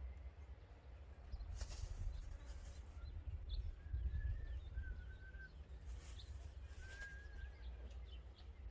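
Faint whistled bird calls, a few short wavering notes and small chirps, over a steady low rumble, with two short rustles about two seconds and six seconds in.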